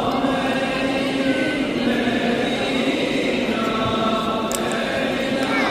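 Many voices chanting together in a steady, overlapping drone: Islamic devotional chanting at a mosque on Mevlid Kandili.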